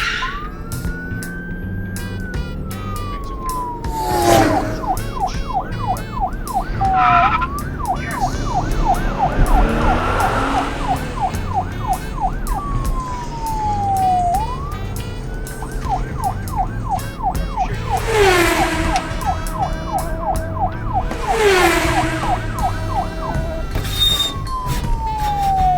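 Police siren switching between a slow rising-and-falling wail and a fast yelp of about three to four sweeps a second, with music underneath.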